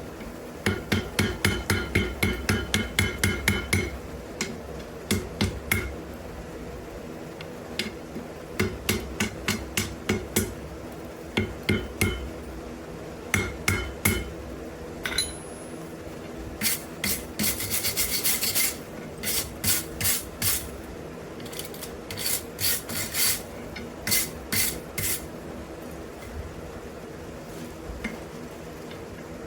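Hand hammer striking hot wrought iron on an anvil, in quick runs of about four blows a second with pauses between, some blows ringing, as the smith works to forge-weld a split that will not close. Scraping strokes on the metal come in the middle, over a steady low hum.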